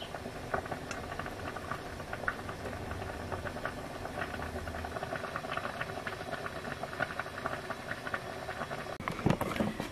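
Pan of rhubarb and water boiling on a camping stove: a steady hiss with constant small bubbling pops and crackles. A few louder knocks come near the end.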